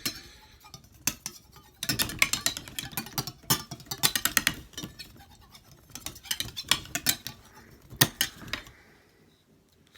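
Knife blade being stroked across a wet Naniwa 5000-grit Japanese waterstone: a rapid run of gritty scraping strokes with metallic clicks, which stops about a second before the end.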